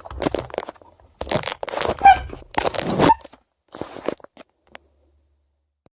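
Crunching, crackling handling noises in irregular bursts for about three seconds, a few fainter ones just after, then they stop.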